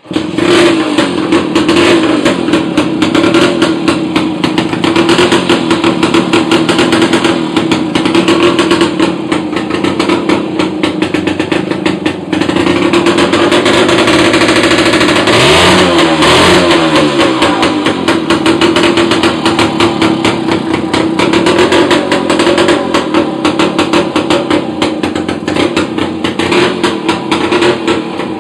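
Monark M400 motorcycle engine running loud and steady without working mufflers, a rapid open-exhaust pulse throughout. About halfway through, the engine speed briefly dips and picks back up.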